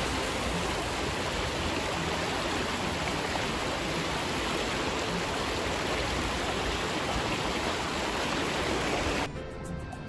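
Fast, shallow creek water rushing over flat rock, a steady noise that cuts off suddenly near the end, leaving only background music.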